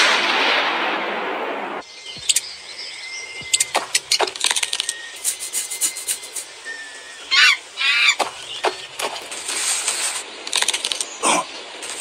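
Cartoon sound effects: a loud rushing blast that dies away and stops after about two seconds, then a string of sharp clicks and short hisses, with two quick squealing calls about seven and a half seconds in.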